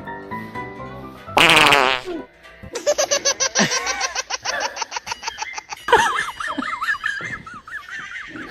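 A loud, wavering fart sound about a second and a half in, then a long run of rapid, pulsing laughter, over background music.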